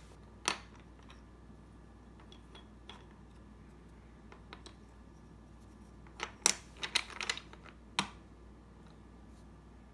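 Plastic pentomino puzzle pieces clicking and knocking against each other and the table as they are fitted together into a cube. A few scattered taps come first, then a quick run of clicks about six to seven and a half seconds in, and a last sharp knock at about eight seconds.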